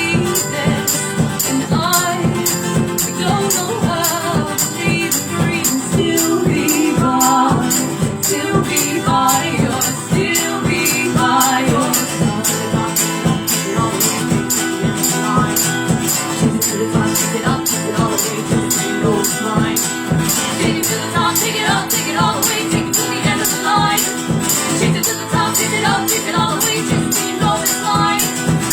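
A duo playing a fast song live: a rapid, even rhythm of strummed or shaken beats, with a voice coming in and out over it.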